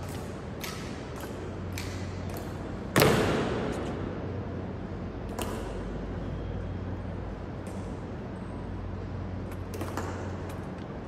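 Honor guards' boots striking a polished stone floor in a large echoing hall: a few sharp clacks, and about three seconds in one much louder bang that rings on through the hall. A steady low hum lies underneath.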